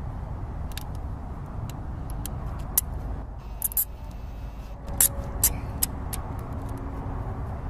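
Plastic zip-tie traction straps being handled and pulled through their locking heads on a car tire, giving a handful of sharp plastic clicks, several close together about three and a half seconds in. Under them runs a steady low rumble.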